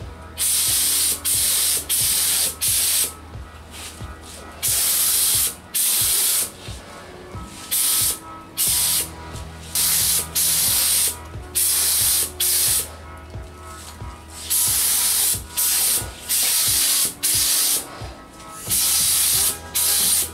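Gravity-feed paint spray gun (a cheap Harbor Freight gun) spraying primer or enamel onto small truck parts: a long series of short trigger pulls, each a sharp hiss of air and atomised paint lasting under a second, with brief pauses between passes.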